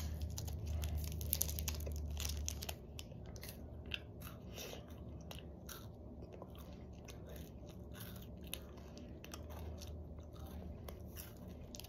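A person biting into and chewing a KitKat chocolate wafer bar, with many small, irregular crisp crunches from the wafer. A low rumble sits under the crunching for the first few seconds.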